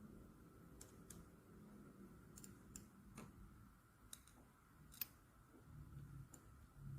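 Near silence with faint, scattered small clicks, about a dozen at irregular intervals: small metal Swiss Army knife parts being handled and set down.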